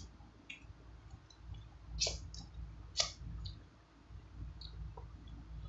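Wet mouth clicks and smacks of someone chewing soft durian flesh, a scatter of small clicks with two sharper ones about a second apart midway.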